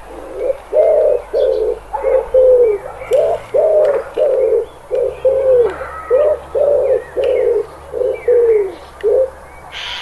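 Feral pigeons (rock doves) cooing: a steady run of short, low coos, about two a second, some falling away in pitch at the end. Faint chirps of small birds sound higher up.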